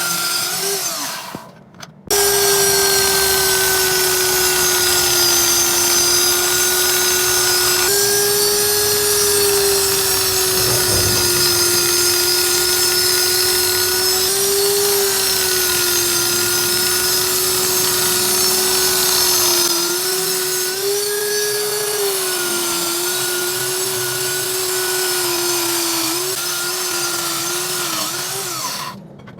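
Handheld electric power tool running steadily at a near-constant speed, its motor pitch wavering slightly, with a hissing edge from the work. It breaks off abruptly for a moment near the start and again near the end.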